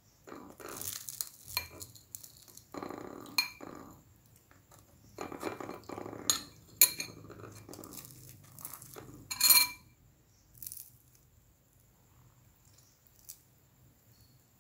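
Metal knife and spoon clinking and scraping on a ceramic plate while fried fish cakes are handled, with several sharp clinks and a louder clatter a little after halfway. Some short pitched, voice-like sounds are mixed in, and the second half is mostly quiet.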